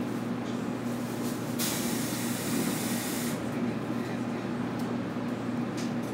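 811 series electric train standing at the platform with a steady low hum. About a second and a half in, compressed air hisses out from the train's air system for nearly two seconds.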